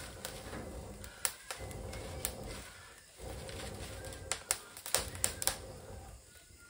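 Wood cooking fire crackling, with a handful of sharp, irregular pops, several close together about four to five seconds in.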